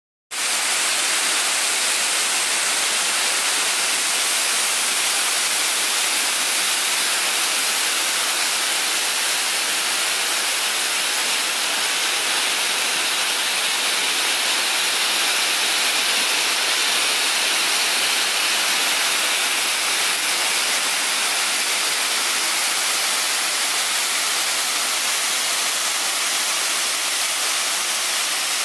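Waterfall rushing steadily: an even, hissing wash of falling water and spray that cuts in abruptly at the start.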